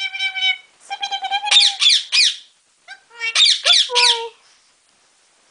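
Pet parrot squawking in its cage: a run of calls, some held on a steady note and several falling quickly in pitch, ending a little over four seconds in.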